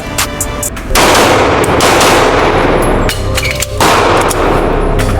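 A string of loud pistol shots fired during a timed range drill, coming in quick clusters, one in the first second and another about three seconds in, with pauses between them.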